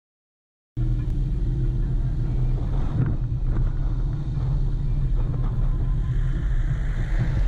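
Motorcycle engine running steadily while riding, a low rumble with road and wind noise; the sound cuts in abruptly just under a second in.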